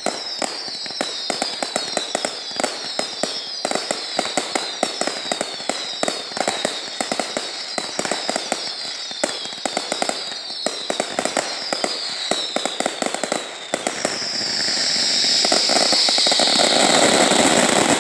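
Fireworks display: dense crackling of firecrackers with many overlapping falling whistles. Over the last few seconds a loud hissing rush swells up and covers the rest.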